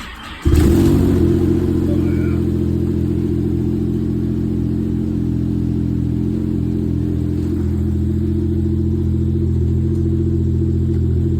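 Snowmobile engine cold-starting in about minus 30 °C: it catches about half a second in and then runs steadily.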